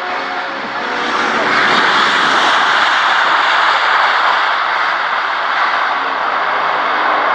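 Military jet passing close by, its engine noise swelling to a loud roar over the first two seconds and staying loud.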